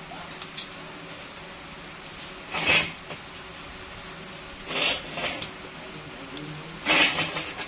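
Eating sounds at a meal of rice and chicken: three short, noisy scrapes or crunches about two seconds apart, over a faint steady hum.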